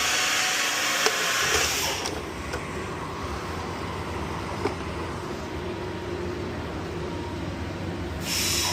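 A loud hiss of air that stops about two seconds in, then a steady low machine hum, with a second short hiss near the end.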